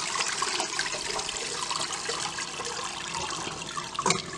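Tepache (fermented pineapple liquid) pouring in a steady stream into a perforated stainless-steel strainer over a pot, splashing through the mesh. About four seconds in, the wet pineapple peels tip into the strainer with a short louder splash.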